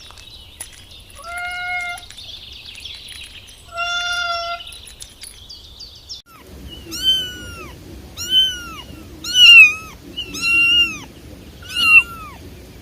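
Domestic cat meowing: two steady-pitched meows, then after an edit a run of six higher, arching meows, about one a second.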